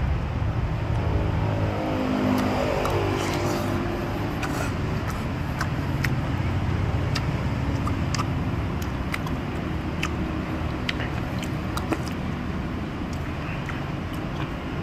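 Steady road-traffic rumble, with an engine passing whose pitch falls between about one and three seconds in. Light, sharp clicks of a metal spoon and wooden chopsticks against a ceramic soup bowl come throughout.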